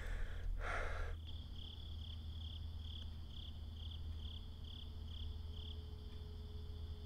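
Crickets chirping in a regular pulse, about two or three chirps a second, over a steady low hum. A short rush of noise comes just before the chirping starts, about a second in.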